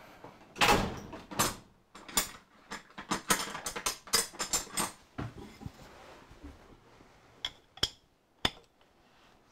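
Metal clicks and knocks from handling and tightening the parts of a steel dividing head during reassembly. A quick, irregular run of clicks fills the first five seconds, then three sharp single clicks come near the end.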